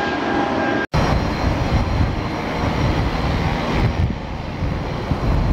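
Airplane engines running: a steady high whine, then the sound cuts out for an instant about a second in, followed by a deep rumble with a faint high whistle.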